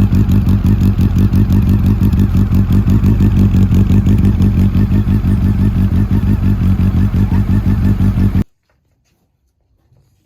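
Honda CB400 Super Bol d'Or's NC39 four-cylinder engine idling steadily, its exhaust note loud and evenly pulsing, with no revving. The sound cuts off suddenly near the end.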